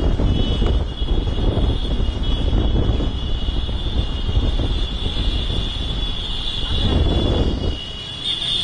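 Wind buffeting the microphone over the din of a street procession on the move: a crowd on foot mixed with the engines of a truck and motorcycles. The level dips briefly near the end.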